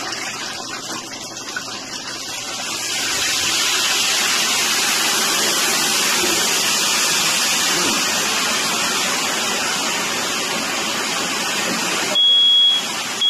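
Water running steadily, growing louder about two and a half seconds in, then a single high electronic beep near the end.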